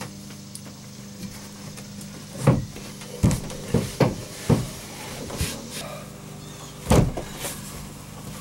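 A series of short knocks and clunks as a small lawn-and-garden house battery is handled and shifted in a wooden locker, with about six knocks between two and a half and seven seconds in, over a steady low hum.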